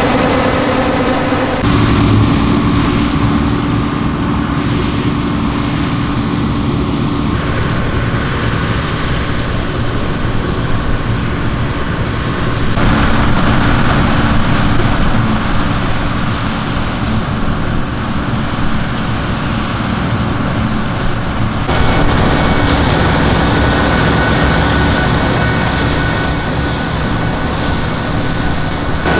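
Massey Ferguson 760 combine harvester's Perkins V8 diesel engine running steadily under load while harvesting wheat, with the mechanical drone of the machine's threshing works. The tone changes abruptly about 2, 13 and 22 seconds in, as the listening position shifts.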